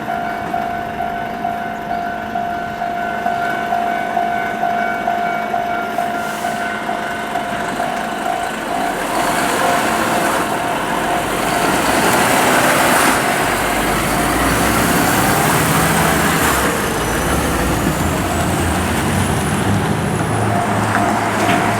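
Level-crossing warning bell ringing steadily in even pulses, then a heavily loaded double-trailer truck passes from about nine seconds in: deep engine rumble and rushing tyre noise, loudest a few seconds later, with the bell heard again near the end.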